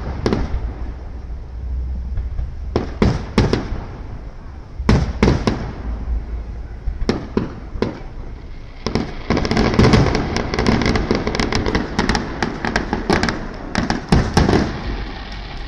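Aerial firework shells bursting: scattered booms for the first few seconds, then a dense run of rapid bangs and crackling from about nine seconds in until near the end.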